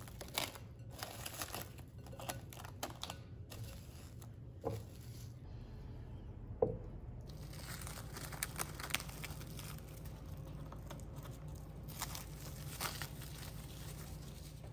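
Plastic cling wrap crinkling as it is stretched over a glass bowl and later peeled back off, in two spells of crackling with a single sharp tap between them.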